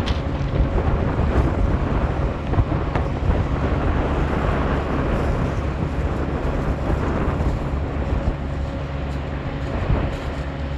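Diesel engine of a Shannon Launch and Recovery System tractor running steadily while the lifeboat is hauled onto its carriage, with wind buffeting the microphone and surf behind.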